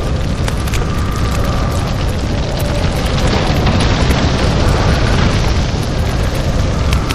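Monster sound effect for the Enenra, a smoke creature: a continuous rumbling roar with scattered crackles. It swells a little around the middle.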